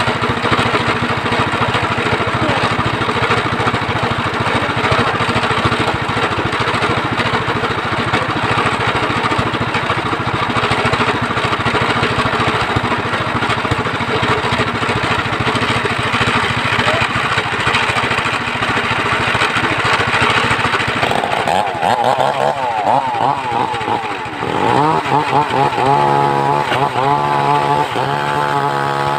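Homemade engine-driven circular sawmill running loud and steady. About three-quarters of the way through, its sound shifts to a wavering pitch that rises and falls.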